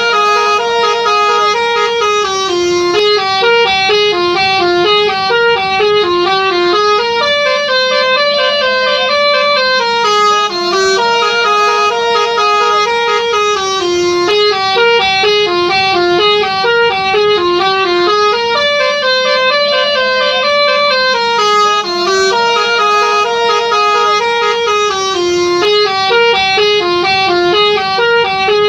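Telolet bus horn, a multi-tone musical air horn, playing a fast melody of short stepped notes. The phrase repeats about every ten seconds, and a held, wavering note sounds above it in places.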